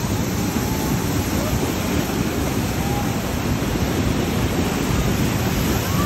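Niagara Falls' water pounding down at close range: a loud, steady rush of falling water and spray.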